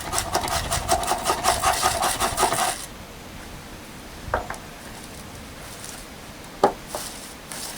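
Firesteel (ferrocerium rod) scraped hard and fast with a striker, a quick run of rasping strokes lasting nearly three seconds. Two single sharp taps follow, a couple of seconds apart.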